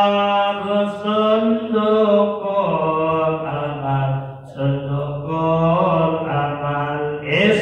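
A man chanting an Arabic nazam (sung devotional verse) solo into a microphone, in long held notes with wavering ornaments and short breaths between phrases.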